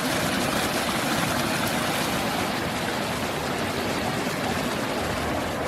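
Creek water flowing steadily, a continuous rushing noise.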